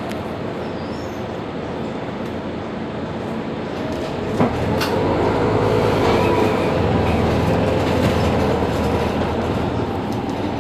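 Mercedes-Benz Citaro G articulated diesel bus idling, echoing under a concrete station roof. About four seconds in there is a sharp click, after which the running grows louder with a steady hum.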